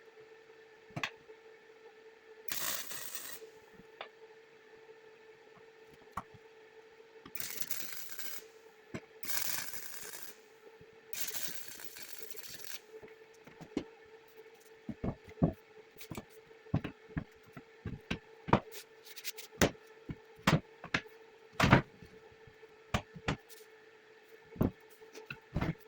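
Hand work on metal: four rasping strokes of about a second each, like scraping or filing, then a run of about twenty short, sharp knocks and clacks, roughly one or two a second, over a faint steady hum.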